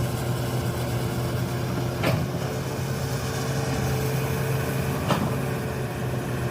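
Komatsu PC200-8 excavator's diesel engine running steadily, with two sharp knocks about three seconds apart and a faint whine through the middle.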